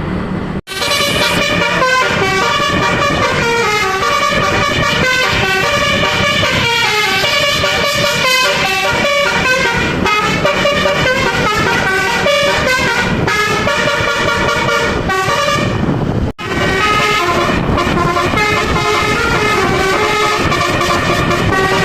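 Telolet basuri musical air horns on a vehicle, several horns sounding held notes that step up and down in pitch to play a tune, with a low rumble underneath. The sound breaks off abruptly twice, about half a second in and again near sixteen seconds, at cuts in the recording.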